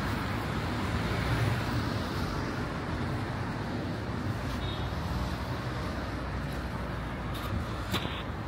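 Steady road traffic noise from cars passing on a city street, with a brief sharp high sound near the end.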